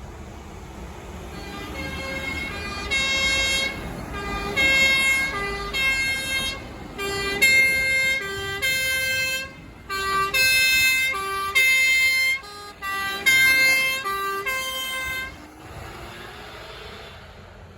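Fire engine's two-tone siren, a short low note alternating with a longer high note, growing louder as it approaches and stopping about fifteen seconds in. Near the end the passing truck's engine and tyres make a rushing noise.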